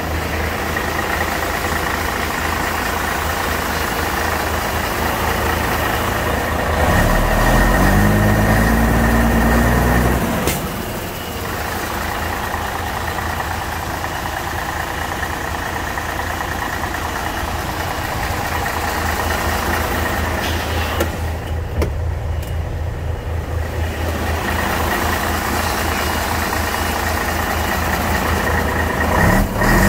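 Mercedes-Benz 3031 tipper truck's diesel engine idling, revved up about seven seconds in and held for a few seconds before dropping back to idle.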